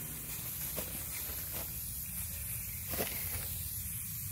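Rust-Oleum spray paint can hissing steadily as black gloss paint is sprayed, with a couple of faint knocks, the clearest about three seconds in.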